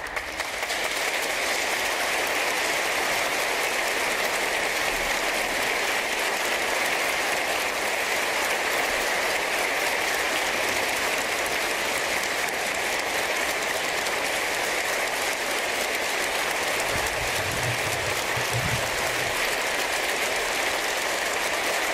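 Long, steady applause from a large crowd, swelling up within the first second.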